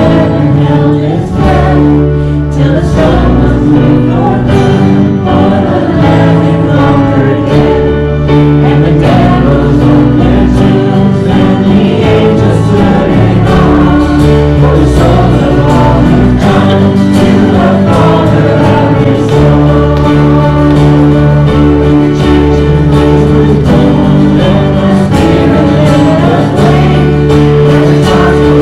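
Several voices singing a gospel hymn together, with steady instrumental accompaniment and held notes.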